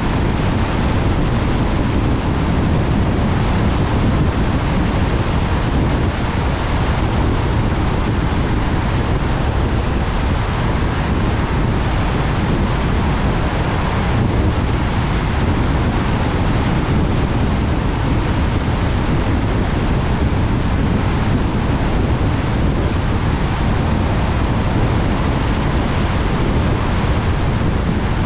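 Steady rushing noise of a car driving on wet, rain-soaked roads: tyre hiss and wind, heaviest at the low end, with no distinct knocks or tones.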